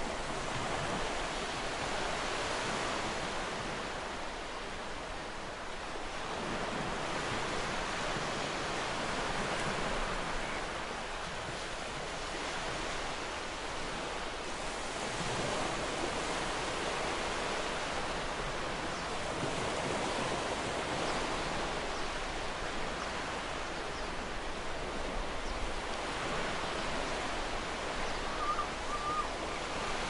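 Ocean surf lapping against a sandy beach: a steady wash of noise that swells and eases gently every several seconds as waves come in.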